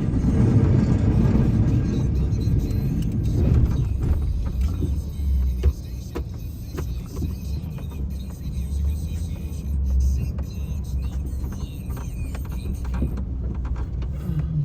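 Engine of a snow-pushing machine running steadily under load, louder for the first few seconds and then easing slightly, with scattered short knocks and clunks.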